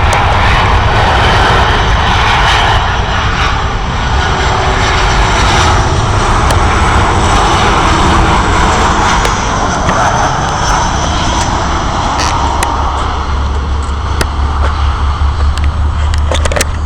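Airliner's engines passing loud and close overhead on its landing approach, a steady rumbling roar.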